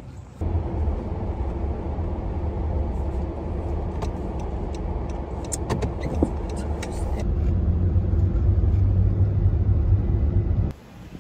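Car driving, heard from inside the cabin: a steady low road and engine rumble that starts abruptly and cuts off shortly before the end, with a few faint clicks around the middle.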